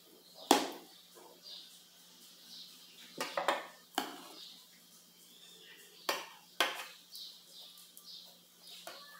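Metal knife, fork and serving spoon clinking and scraping against a metal baking pan while breaded steaks under melted cheese are cut and lifted out. A handful of sharp clinks: the loudest about half a second in, a quick cluster around three seconds in, and two more a little after six seconds.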